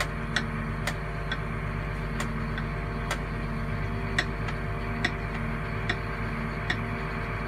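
Challenger MT600 tractor's diesel engine running steadily at about 1000 rpm, heard from inside the cab. Sharp ticks come at uneven spacing, about once a second.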